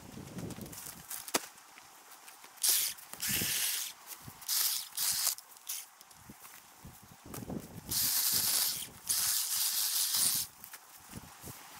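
Repeated short bursts of hissing air or spray, about six of them, each half a second to a second long, with quiet gaps between. There is a single sharp click about a second and a half in.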